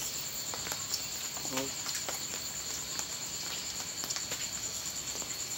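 Crickets chirping in a steady, high, continuous trill, with scattered light clicks of chopsticks against bowls.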